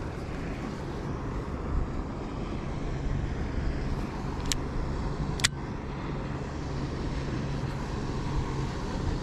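Boat engine running steadily at low speed, a low hum under a wash of wind noise. Two sharp clicks come about halfway through as the fishing reel is handled.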